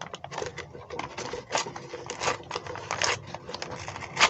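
A plastic delivery wrapper crinkling and tearing as it is pulled open by hand, in a quick run of irregular crackles, with a loud sharp crackle near the end.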